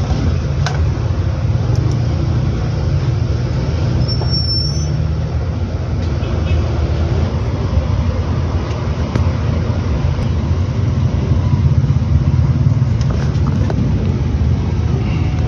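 Steady low rumble of background noise, with a few faint clicks and a brief high chirp about four and a half seconds in.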